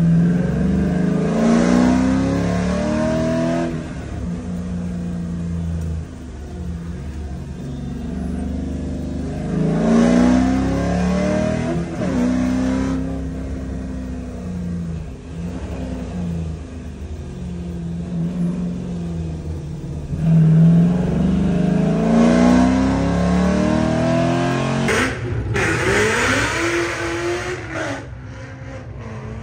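C5 Corvette's V8 heard from inside its stripped cabin on an autocross run, the revs climbing and falling again and again as the car accelerates, shifts and slows between corners.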